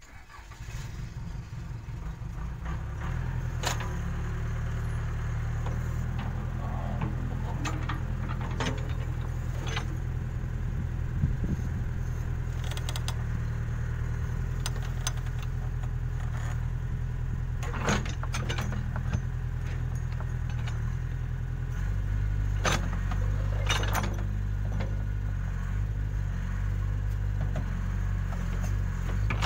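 Case 580K backhoe loader's diesel engine running steadily, its note changing about two-thirds of the way through, with scattered metallic clanks and rattles.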